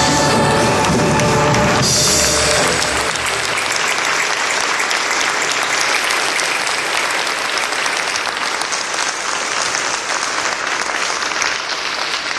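The music ends about two seconds in with a held final chord, and the audience then applauds steadily.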